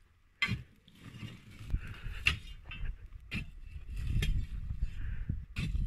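A long iron bar jabbing and scraping among the stones and coals of an earth pit oven, shifting them about, with about five sharp clinks of metal striking rock over a low scraping rumble.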